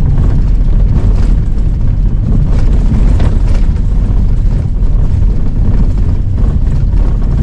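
Pickup truck driving on a snow-packed road: a steady low rumble of engine and tyres, with scattered knocks and rattles.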